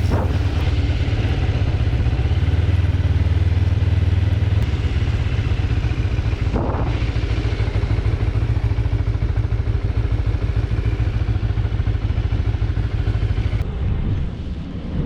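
Motorcycle engine running steadily under way, with road and wind noise and a brief whoosh about seven seconds in. The engine note eases off near the end.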